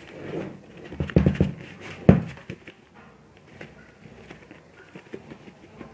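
An opened plastic whey protein tub being handled, with a few dull knocks and rustling from the torn foil seal and powder as a hand digs through for the scoop. The loudest knocks come a little after one second and at about two seconds in.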